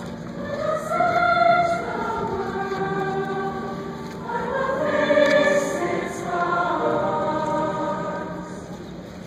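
Mixed high school choir singing in parts, holding long notes that swell louder about a second in and again about five seconds in, then fade toward the end.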